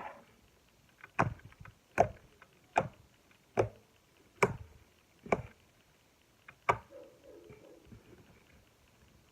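Slime being pressed and squeezed, making seven sharp pops or snaps about one a second, with a longer pause before the last one.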